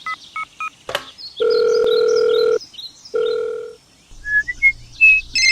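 Telephone keypad beeps as a number is dialled, then two long ringing tones of a call going through, separated by a short gap. A short run of rising beeps follows near the end, over faint bird chirps.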